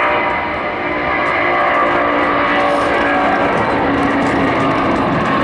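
Airbus A330's twin Rolls-Royce Trent 700 turbofans running at takeoff thrust as the jet rotates and lifts off: a steady roar with a few held whining tones.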